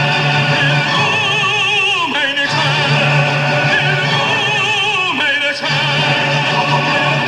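Music: operatic singing, long held notes with wide vibrato over a pulsing low accompaniment, with brief breaks between phrases about two and five seconds in.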